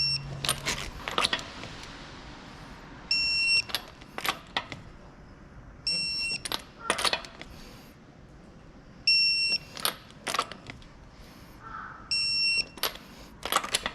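A short, high electronic beep about every three seconds, five in all, each followed within a second by a few sharp metallic clicks.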